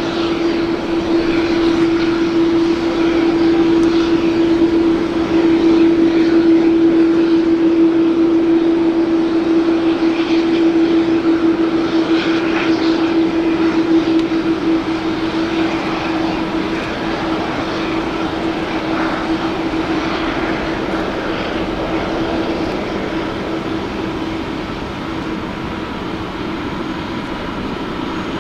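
Jet airliner's engines running, a steady noise with one strong low steady tone. It grows louder over the first few seconds, then slowly fades away through the second half.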